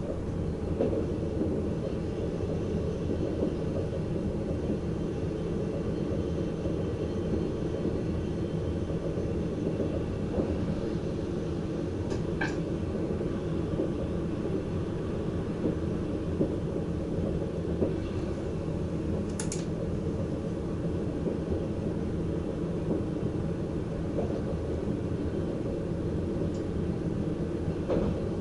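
Steady running rumble of a VIRM double-deck electric train heard from inside the driver's cab: wheels on rails and traction noise. Two brief, faint high-pitched squeaks come partway through.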